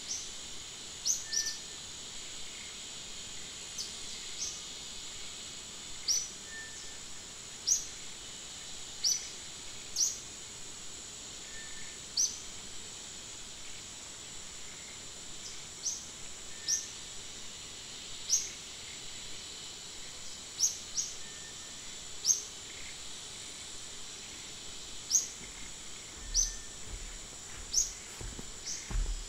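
Forest ambience: a steady high insect drone, with short high chirps repeating every second or two. A few low bumps come near the end.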